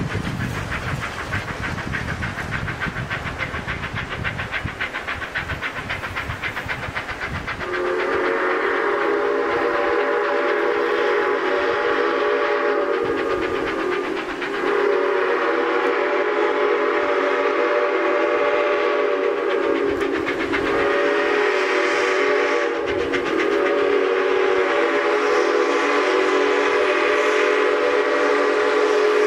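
A moving train rumbles, then its locomotive sounds a chord-toned horn or whistle in the grade-crossing pattern: two long blasts, a short one, and a long one that is still sounding at the end.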